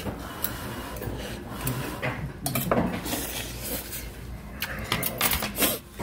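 Metal chopsticks and spoons clinking and knocking against stainless-steel bowls and dishes at irregular moments.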